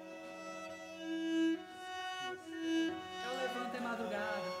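Cello bowed in long, held notes. A little past three seconds in, a second wavering melodic line joins it.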